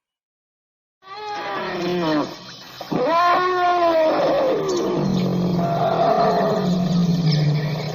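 Elephant calling. After about a second of silence come two loud calls, the first falling in pitch and the second rising then falling, followed by a steady, lower call.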